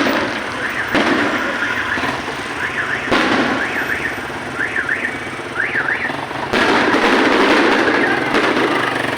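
Fireworks going off: sharp bangs at the start, about a second in, about three seconds in and near seven seconds, over continuous crackling. Through the middle, a high warbling tone rises and falls in quick zigzags.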